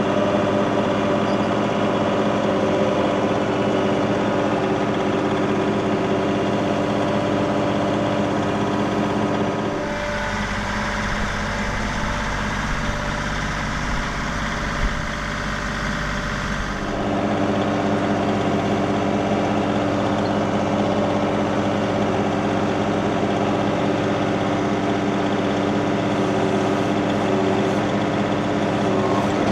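Compact tractor's diesel engine running steadily while the front loader is worked. For about seven seconds near the middle its sound changes, with more low rumble and hiss, then returns to the earlier steady note.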